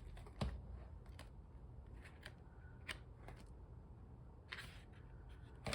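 Planner pages and inserts being handled: a scatter of light paper rustles and small clicks over a low steady room hum.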